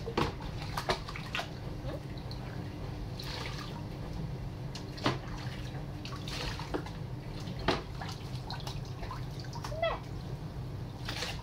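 Water poured from a small cup over a wet puppy in a kitchen sink, splashing and dripping, with a few short, sharp splashes or knocks over a steady low hum.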